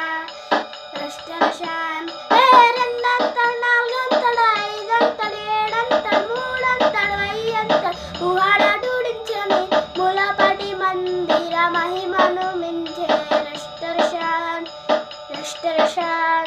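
A boy singing a Telugu Christian worship song in long, wavering sung phrases, over a backing track with a steady beat.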